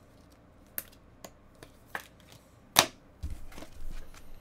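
Trading cards being handled: five sharp clicks and taps as the cards are picked up and sorted, the loudest nearly three seconds in, followed near the end by a low rubbing sound of cards and fingers.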